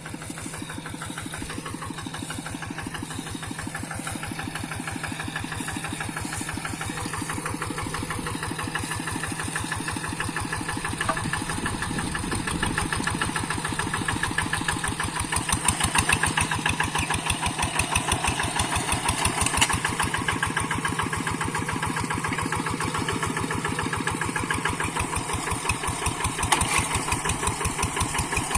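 Single-cylinder diesel engine of a two-wheel hand tractor running steadily with a rapid, even chugging, growing louder about halfway through and giving a few stronger beats near the middle and end.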